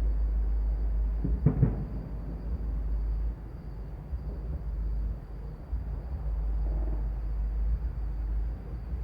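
Distant fireworks: a short cluster of pops about one and a half seconds in, over a steady low rumble.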